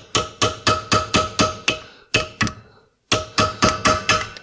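Hammer tapping on a flat-blade screwdriver to bend up the tab of a lock washer against a Vespa clutch nut, so the nut cannot work loose. A quick run of about four metallic strikes a second, each with a short ring, pauses briefly about two and a half seconds in, then starts again.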